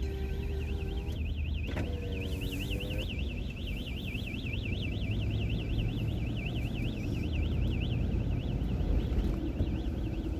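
Gas station store's electronic security alarm sounding continuously: a high-pitched tone warbling rapidly up and down, which drops away briefly near the end. A steady low rumble runs underneath.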